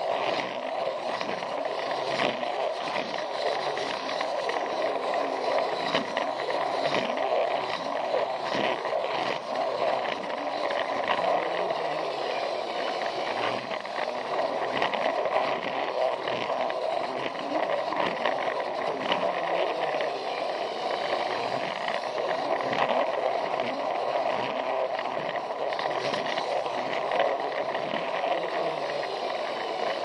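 Plarail toy train running along plastic track: its small battery motor and gears whir steadily while the wheels give off a continuous rattle of fine clicks.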